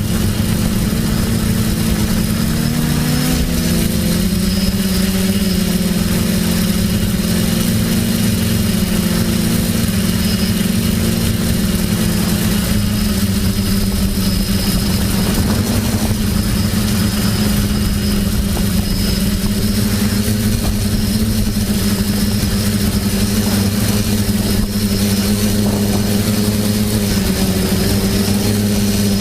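TBS Discovery quadcopter's electric motors and propellers buzzing steadily in flight, the pitch shifting a little with throttle, over a constant hiss of rushing air.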